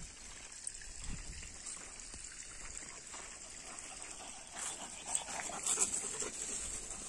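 Georgian shepherd dogs (nagazi) moving and snuffling at a chain-link fence: soft scuffling, rustling and sniffing. It is faint at first and busiest about five to six seconds in.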